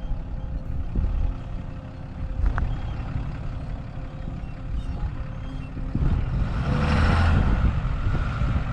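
Truck running with a steady low engine rumble and road noise, swelling to a louder rush of tyre and wind noise about six seconds in.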